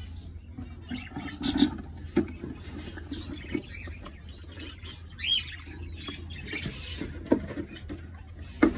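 Small cage birds chirping and twittering in an aviary, over a steady low hum. There are sharp wooden knocks about a second and a half in and a louder one near the end, as a wooden nest box is handled.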